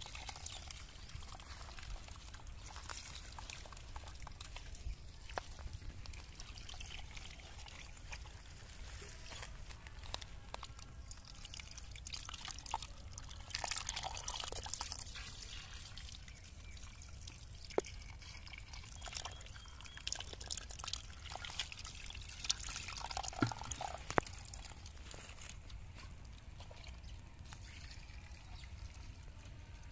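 Shallow muddy water in a hole dug in wet mud, trickling and sloshing, with scattered small wet clicks and splashes.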